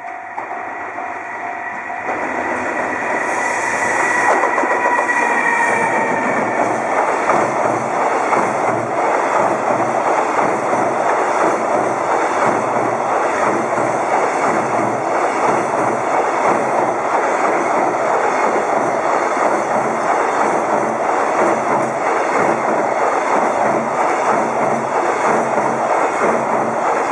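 An EF210 electric locomotive hauling a container freight train past at speed. A whine falls slightly in pitch a few seconds in as the locomotive goes by, then the container wagons keep up a steady rumble with a regular clickety-clack of wheels over rail joints.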